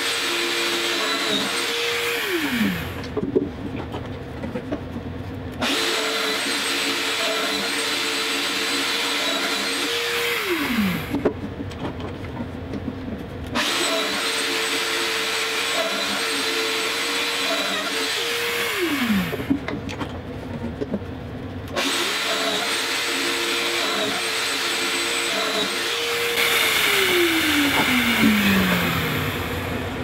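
Festool Domino joiner with a dust-extraction hose running and plunging to cut mortises in a plywood drawer box. It is switched off and winds down with a falling pitch four times, and restarts about every eight seconds; the last wind-down is slower.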